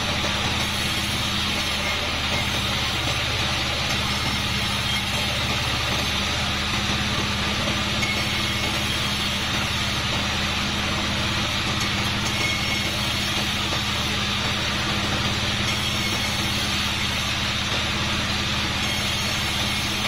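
Sawmill band saw, a 36-inch bandsaw, running steadily as it rips kapok wood slabs into boards: a constant machine hum under an even hiss from the blade cutting.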